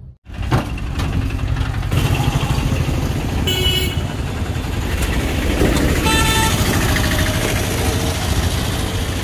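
Busy street traffic: motorbike and auto-rickshaw engines running, with two short vehicle horn toots, one about three and a half seconds in and another about six seconds in.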